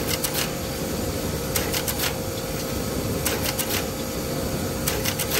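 SMT pick-and-place machine running: a steady hum with a constant whine, and four clusters of quick clicks, about one every one and a half to two seconds, as the multi-nozzle placement head picks and places components.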